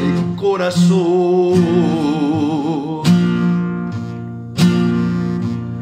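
Strummed chords on an acoustic classical guitar, with a man holding one sung note with vibrato for the first few seconds; after that the guitar plays on alone.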